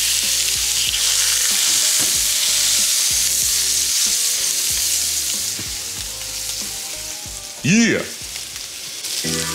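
Thick bone-in ribeye steak sizzling hard in hot beef tallow, just past its smoke point, in a heavy frying pan as it is laid in and pressed down; the sizzle eases a little after about five seconds. A short vocal sound about eight seconds in.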